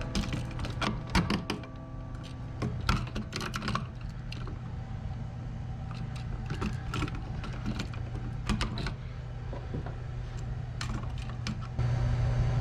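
Irregular small clicks and taps of electrical wire and a wall outlet being handled and fitted into a gang box, over a steady low hum that gets a little louder near the end.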